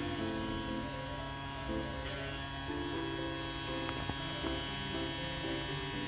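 Small battery motor of a Hetty toy vacuum cleaner buzzing steadily as it is pushed over carpet, with a simple tune of background music over it.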